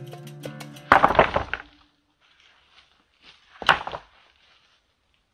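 Field stones being thrown onto a heap of stones: a loud stone-on-stone knock with a short clattering tail about a second in, just as guitar music cuts off, then a second sharp single knock a little past halfway.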